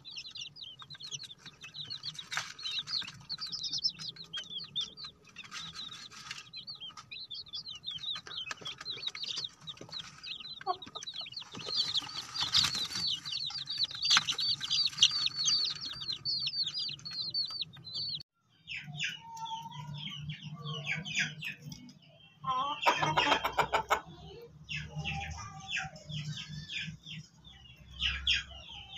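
Bantam chicks peeping in a dense, continuous chorus of rapid high chirps. About two-thirds through, the sound cuts to sparser, lower chicken calls, with one louder burst of calling a few seconds later, all over a faint low hum.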